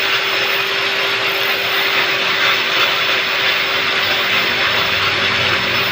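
Steady machine-like whirring noise with a constant hum, unchanging throughout.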